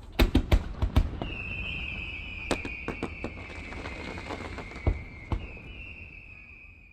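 Fireworks going off: a quick run of sharp bangs, then a long high whistle from a whistling firework that carries on for several seconds while scattered bangs and crackles continue, fading out at the end.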